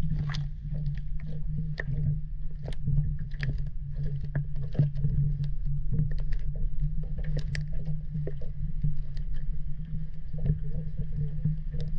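Muffled sound picked up by a waterproof action camera held half-submerged in canal water: a steady low hum with water lapping against the housing and many scattered sharp clicks and taps.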